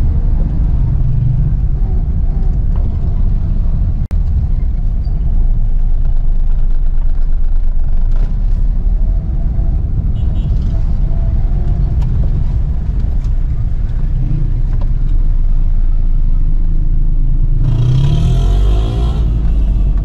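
A small car's engine and road noise, a low steady rumble heard inside the cabin as the car creeps through dense street traffic. It is most likely a Suzuki Mehran with its small three-cylinder engine. Near the end a louder, harsher engine sound from nearby traffic rises over it for about a second.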